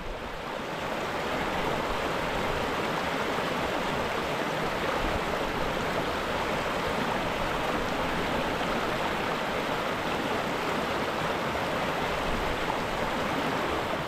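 Steady rush of water from a stream, an even noise without any tune, fading in over the first second or so.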